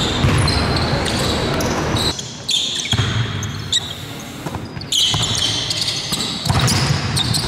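Basketball game noise on a hardwood court: sneakers squeaking, a ball bouncing and players calling out. The background changes abruptly a few times where separate clips are spliced together.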